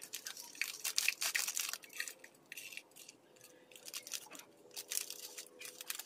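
Plastic bird-feed packet crinkling and rustling as it is squeezed and shaken to pour feed through a small funnel: quick runs of sharp rustles and ticks, busiest at the start and again near the end, with a quieter pause in the middle.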